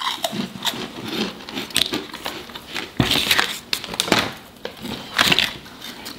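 Crunching and chewing of crisp puffed rice-and-pea snack rinds, irregular and close, mixed with the crinkling of the plastic snack bag being handled.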